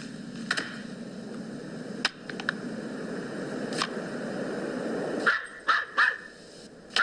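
A dog barking in short, separate barks, with several quick barks in a row about five seconds in. Under them is a steady low noise that cuts off suddenly just as that run of barks starts.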